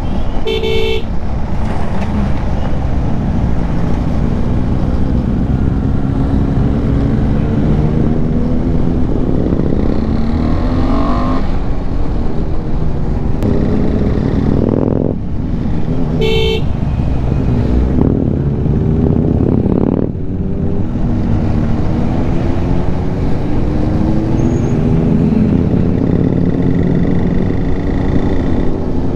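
KTM 390 Adventure's single-cylinder engine under way, heard from the rider's seat. Its pitch rises as it accelerates and drops off briefly twice between gears. A vehicle horn beeps briefly about a second in and again about halfway through.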